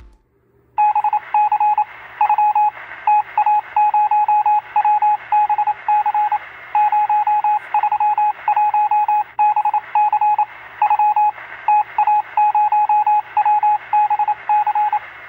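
Electronic beeping in a Morse-code-like pattern: a single tone keyed on and off in short and long beeps at an uneven rhythm, over a faint radio-like hiss and hum. It starts about a second in.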